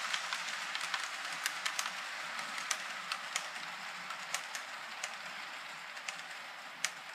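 HO scale model passenger train rolling past on its track: a steady whirring hiss of wheels and motor with irregular sharp clicks, slowly fading as the train moves away.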